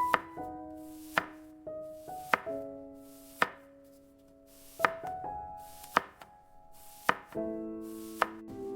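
Knife chopping on a cutting board, with single sharp chops about once a second, eight in all, over gentle piano music.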